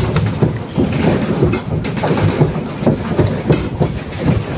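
Pedal boat being pedalled across the water: a steady churning rumble with irregular clacks from the pedal and paddle-wheel drive.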